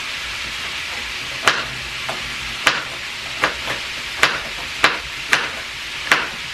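Knife chopping vegetables on a cutting board: a run of about nine sharp, irregular clicks starting about a second and a half in, over a steady hiss.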